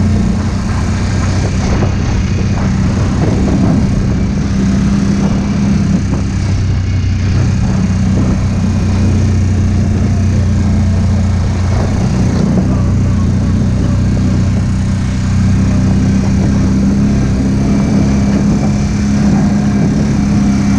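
ATV engine running steadily while riding, a low drone that holds nearly the same pitch throughout, with scattered knocks and rattles.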